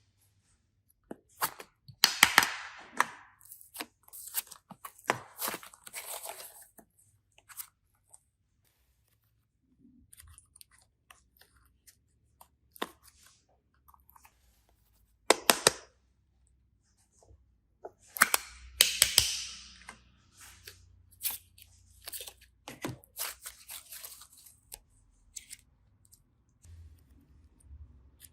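Irregular bursts of crunching and crinkling handling noise, with sharp clicks between them and quiet gaps, from hands working slime and craft materials.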